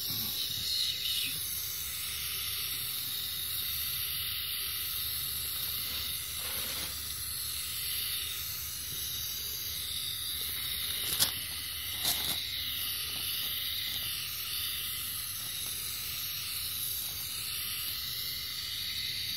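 Liquefied gas hissing steadily out of a gas torch's nozzle into a steel dry cylinder liner, chilling the liner so it can be press-fitted into the engine block. Two short sharp clicks come about a second apart midway through.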